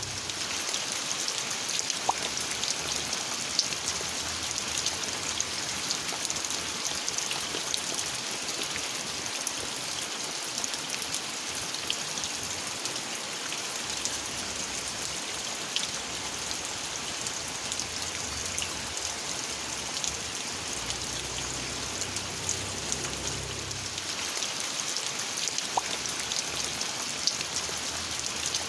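Steady rain falling, with many single drops heard as small ticks over an even hiss.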